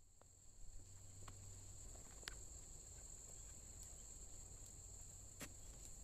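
Faint, steady, high-pitched chorus of insects in a wet meadow, with a couple of soft clicks about two and five seconds in.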